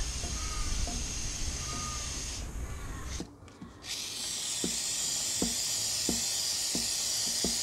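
Aerosol can of motorcycle chain lubricant spraying onto the chain in a long steady hiss, broken briefly about three seconds in. Faint ticks a little under a second apart run under the second half.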